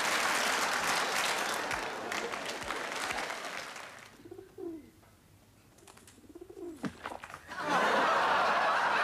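Audience applause dying away over the first few seconds. Then, in near quiet, a pigeon coos a couple of times, slow notes that rise and fall. Loud audience applause and laughter break out again near the end.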